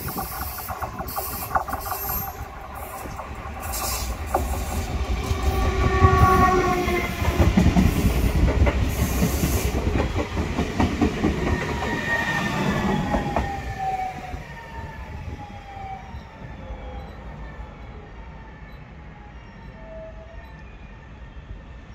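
Class 72 electric multiple unit passing close by as it slows for a station stop: wheels rumbling on the rails with clicks over the track, and electric motor whine falling in pitch as the train brakes. It is loudest about halfway through, then fades as the train runs on into the station.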